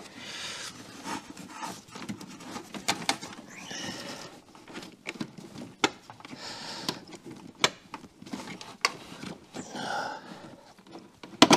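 Scattered sharp clicks and light knocks of hands working an electrical connector off an ignition module, with a person's breathing heard between them.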